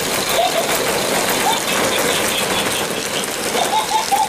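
Plastic play balls clattering as French bulldog puppies scramble through a ball pit, over the steady whirr of a battery-driven toy ball's motor. A few short, high puppy squeaks, several close together near the end.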